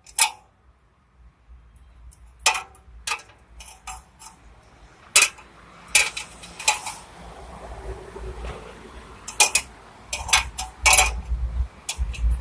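Metal clanking: about nine sharp clinks and knocks at irregular intervals, over a low rumble.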